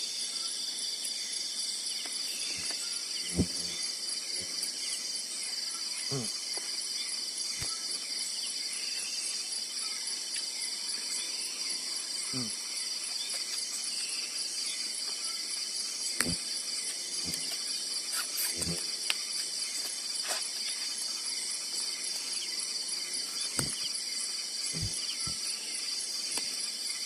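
Steady shrill chorus of forest insects such as crickets and cicadas, pulsing finely, with a handful of soft knocks scattered through it.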